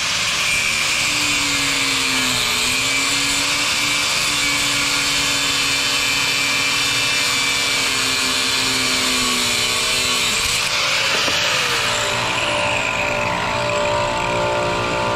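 Angle grinder with a cutoff wheel cutting through a threaded pipe fitting. The motor's pitch dips and wavers as the wheel bites under load, and it winds down about twelve seconds in.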